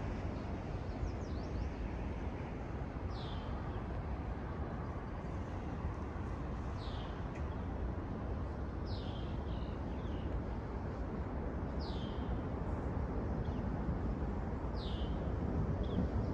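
A bird repeating a short, high, falling call every few seconds over a steady rushing background noise.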